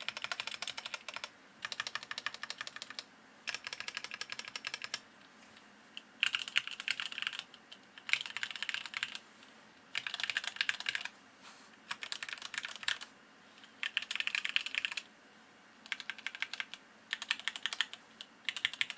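Mechanical keyboard with light linear Gateron Ink Yellow switches and DSA keycaps, keys pressed rapidly in about a dozen short bursts of clicking about a second long with brief pauses between. The demonstration starts on the spacebar, which sits on lubed Durock stabilizers.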